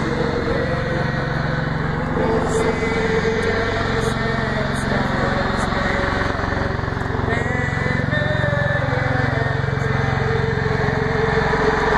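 Camera drone's small electric motors and propellers whirring steadily, with a few slight shifts in pitch as the motors adjust.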